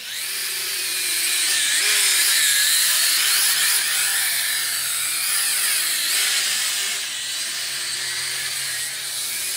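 Small FPV quadcopter's motors and propellers whining, the pitch sliding up and down as the throttle changes.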